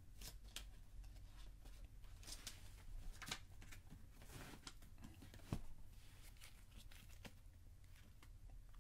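Faint handling noise of a small paper booklet: scattered light clicks and knocks with soft paper rustling, the sharpest knock about five and a half seconds in.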